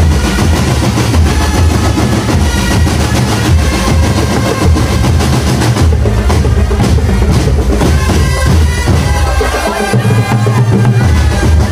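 Marching drum band playing: bass drums and snare drums keep a dense, steady beat under a melody line.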